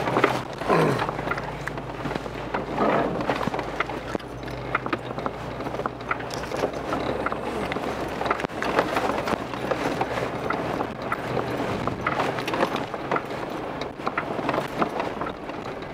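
A 4x4 crawling over a rocky mountain trail: tyres crunching and knocking over rocks and gravel in a constant clatter, with the engine running low and steady underneath.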